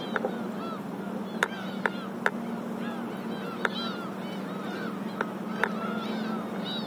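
Many short, overlapping calls from a flock of seabirds, over a steady low hum, with a few sharp ticks.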